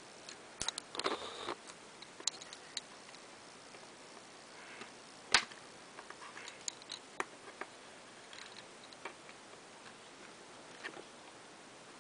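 Small metal clicks and taps of a screwdriver working the steel can and end cap of a small 130-size DC motor as it is pushed back together, irregular and scattered, with one sharper click about five seconds in.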